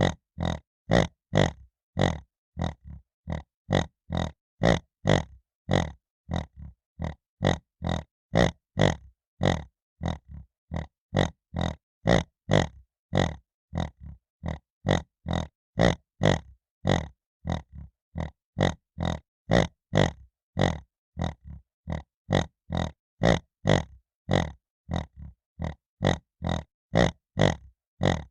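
Piglet grunting over and over: short grunts about two a second, with brief silences between, in a steady even rhythm.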